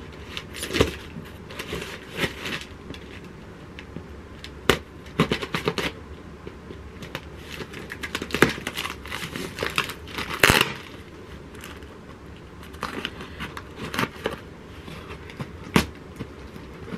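A cardboard shipping box being torn open by hand, with crinkling and tearing in irregular short crackles; the loudest rip comes about ten and a half seconds in.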